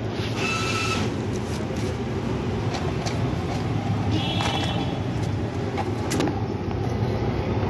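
Steady rumble of street traffic, with two brief high-pitched tones, about half a second in and again about four seconds in, and a few light clicks.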